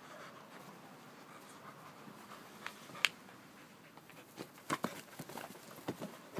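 Corgi nosing and pushing a ball across grass: scattered short knocks and scuffs, the sharpest about three seconds in and a few more close together near the end.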